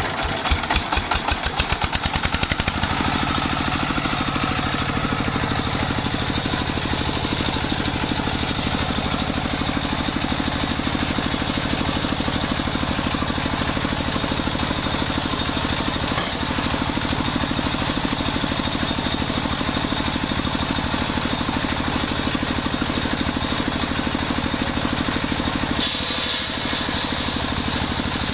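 Stationary diesel engine speeding up unevenly for the first few seconds, then running steadily. It belt-drives a table circular saw that is ripping a jackfruit-wood plank.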